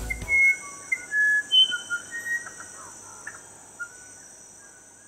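Short whistled bird calls at several different pitches over a steady high insect buzz, the whole fading out gradually.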